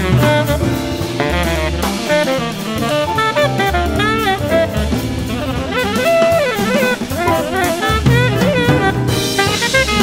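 Jazz big-band music: saxophones and brass playing a melody over a drum kit.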